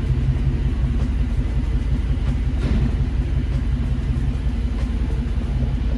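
Steady low rumble of a car engine idling, even and unchanging throughout.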